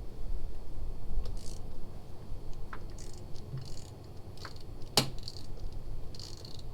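Light clicks, rattles and short scrapes of parts being handled, with one sharp click about five seconds in, over a low wind rumble on the microphone.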